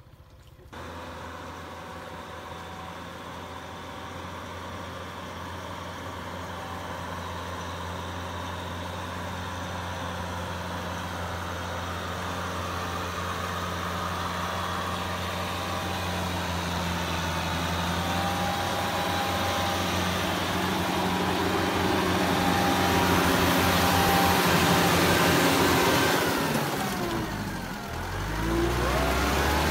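Kubota M6040SU tractor's four-cylinder diesel engine running steadily under load, growing gradually louder as it comes nearer. A couple of seconds before the end it dips, then comes back louder, heard close up by the steel cage wheels.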